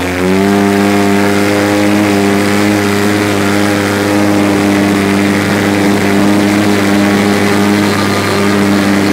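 Polaris RZR side-by-side's engine under way at high revs. The revs finish climbing right at the start, then hold steady and loud.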